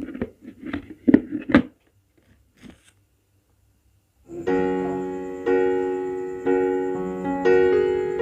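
Several short knocks and rustles of the diffuser and its packaging being handled. About four seconds in, piano music starts, with sustained chords struck roughly once a second.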